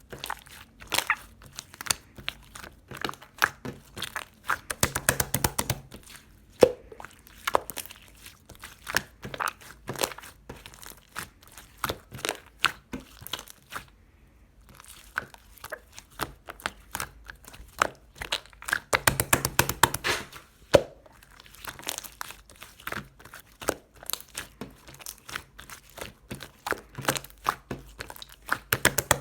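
Clay-mixed slime being squished and pressed, making a steady run of sticky clicks and crackly pops. It comes in thicker flurries about five seconds in and again around twenty seconds, with a brief pause in between.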